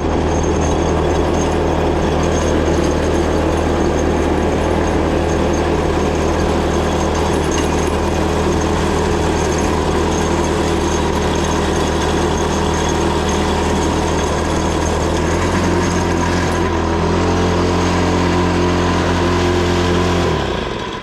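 A small engine or motor running steadily and loudly, with a low, even hum and rattle; its pitch shifts slightly about three-quarters of the way through, then it cuts off abruptly.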